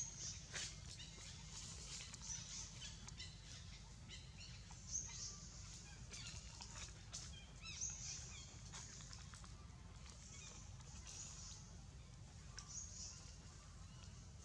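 Faint forest ambience with many short, high chirping bird calls scattered throughout, a few soft clicks, and a low steady rumble underneath.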